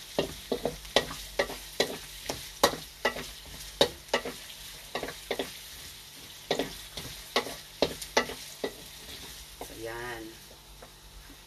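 Garlic and onion sizzling in hot oil in a frying pan, with a cooking utensil clicking and scraping against the pan about twice a second as they are stirred.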